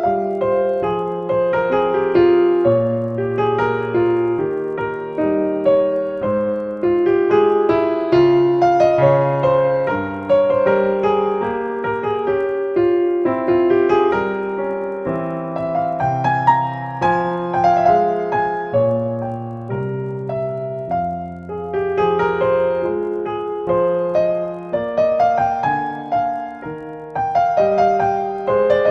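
Background piano music: a slow, gentle melody over sustained chords.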